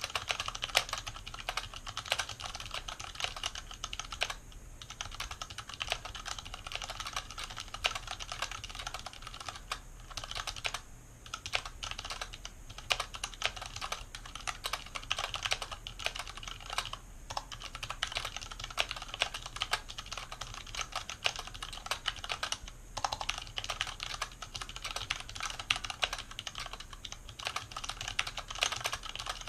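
Mechanical keyboard being typed on fast, about 80 words a minute: a dense, continuous clatter of keystrokes with a few brief pauses.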